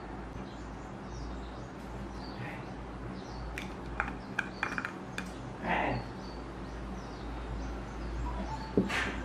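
White plastic screw lid of a Jumiso Waterfull cream jar twisted open by hand: a run of small clicks about four seconds in, a short scrape near six seconds, and a sharp click near the end. Birds chirp faintly throughout.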